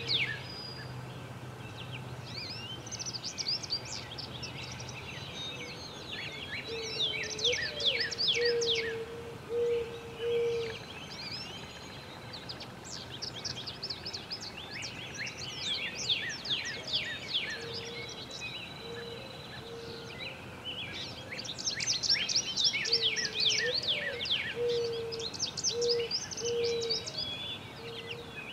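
Wild birdsong: bursts of quick, high trilled songbird phrases repeated every few seconds. Beneath them, a series of four or five low, hollow notes is repeated several times. A faint low hum fades out about six seconds in.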